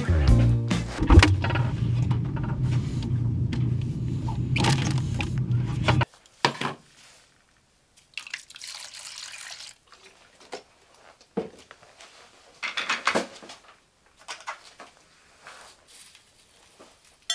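Background music that cuts off about six seconds in, then milk poured from a carton onto dry straw in a metal bowl, followed by scattered rustles and clinks as a spoon stirs and scoops the straw.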